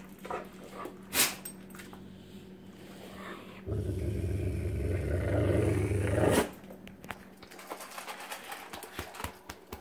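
A dog growls low for about three seconds in the middle, guarding its food bowl. Before and after the growl come small clicks and ticks of the dog eating kibble from the bowl.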